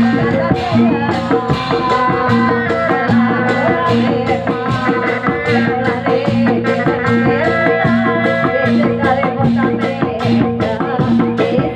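Live Sundanese bangreng ensemble playing loud dance music: a fast, steady beat of hand drums and rattling percussion under a sustained melody line.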